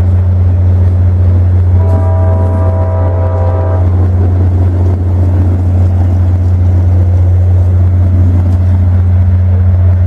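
Diesel locomotive's air horn sounding one held chord for about two seconds, about two seconds in, as the passenger train approaches through a grade crossing. A loud steady low rumble runs underneath.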